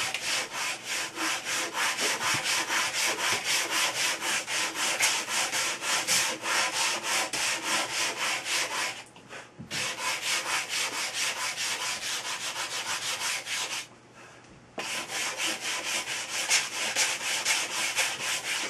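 Sanding block rasping back and forth on a thin balsa wood blade in quick, even strokes, about four a second, rounding the blade's leading edge. The strokes stop briefly twice, about nine and fourteen seconds in.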